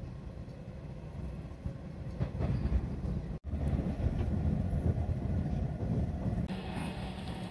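Interior running noise of a JR 185 series express train: a steady low rumble of the train travelling on the rails, broken by a brief dropout about three and a half seconds in, after which it is louder.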